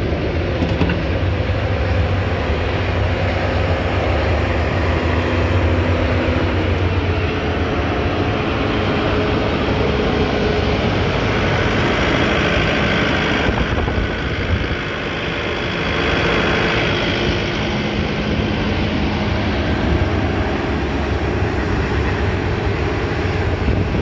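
2017 Bobcat T770 compact track loader's diesel engine running steadily, its pitch shifting slightly a few times, with a brighter hiss joining for a few seconds in the middle.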